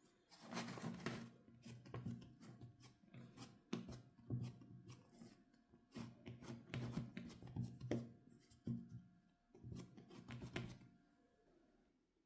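Hands smoothing and pressing soft bread dough in a metal loaf tin: soft, irregular rubbing and patting with scattered sharp clicks, stopping shortly before the end.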